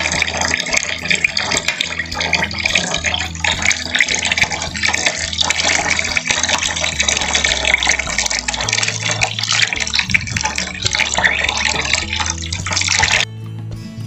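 Water running from a tap in a thin stream into a large aluminium pan of cassava starch slurry, with a steady splashing hiss that stops about a second before the end. Background music plays underneath.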